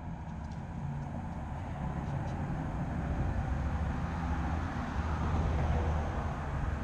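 Steady rumble of traffic crossing the road bridge directly overhead, a continuous low hum of tyres and engines.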